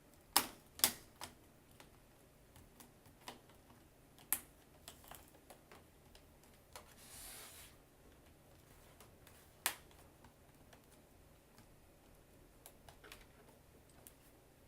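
Plastic laptop screen bezel being pressed down along its edges, snapping into place with scattered sharp clicks, two loud ones close together in the first second, with a brief rustle about seven seconds in.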